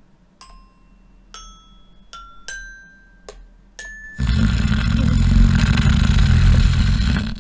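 About six single mallet-percussion notes, like a xylophone or glockenspiel, struck one at a time and stepping upward in pitch. About four seconds in they give way to a loud, dense rumbling noise, heaviest in the low end, that lasts about three seconds and stops just before the end.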